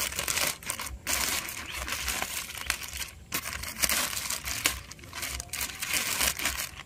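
Clear polythene wrapping crinkling and rustling in fits and starts as it is peeled by hand off the rooted ball of a citrus air layer.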